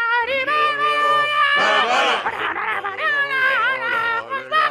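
Puppet characters singing in drawn-out, put-on voices. A single held note at the start is joined about a second and a half in by several voices singing over one another.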